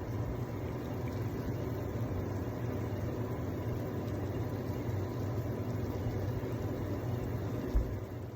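Pot of ginger, garlic and cinnamon tea at a rolling boil on the stove: a steady bubbling rumble with a low hum under it. A single low thump near the end.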